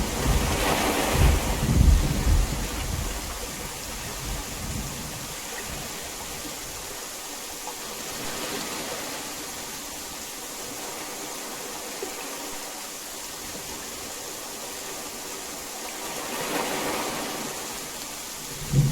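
Heavy rain falling steadily with an even hiss. A rumble of thunder dies away over the first few seconds, and another thunderclap breaks in right at the end.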